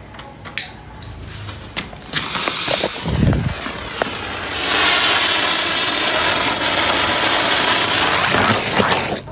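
A small spinning firework pellet burning in a wire holder, spraying sparks with a loud hiss. It flares up about two seconds in, falters, then hisses steadily from about five seconds in until it cuts off suddenly near the end as it burns out.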